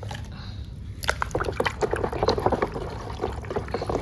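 Water splashing and trickling as a mud-caked toy vehicle is washed. It starts about a second in as a dense, irregular run of splashes.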